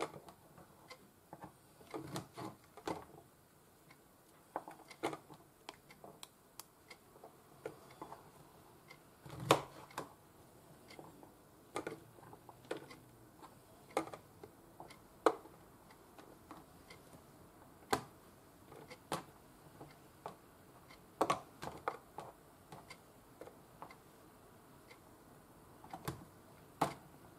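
Kitchen knife cutting shimeji mushrooms on a cutting board: irregular sharp taps of the blade on the board, some louder than others.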